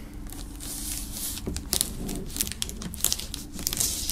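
Plastic shrink-wrap film crinkling and crackling as a knife pierces it and slits it open along the edge of a box, with many small crackles throughout.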